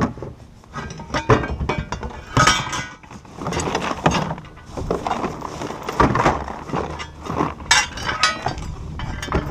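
Rummaging through a pile of gear and tools to find a pair of pliers: hard objects knocking and clinking together irregularly.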